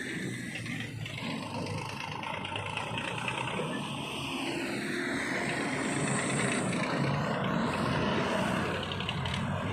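Heavy diesel engines of a backhoe loader and tractor working under load. The pitch falls and rises midway as the machine works.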